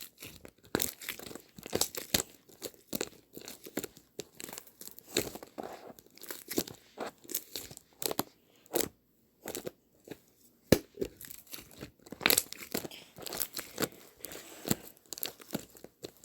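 Dense, irregular crackling and rustling: many sharp clicks of uneven loudness, with a short pause about nine seconds in.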